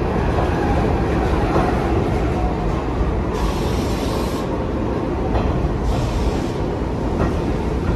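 New York City subway train running along the station platform: a loud, steady noise of wheels on rail, with two short high hisses, about three and a half and six seconds in.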